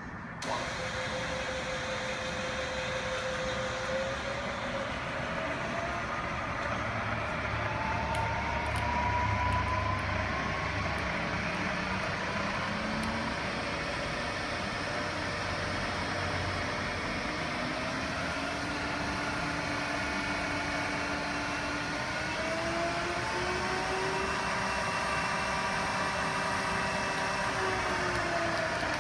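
Sharp LMV-50 vertical milling machine switching on and running under power. Its whine rises in pitch over the first several seconds, climbs again later, and falls near the end as the spindle speed changes.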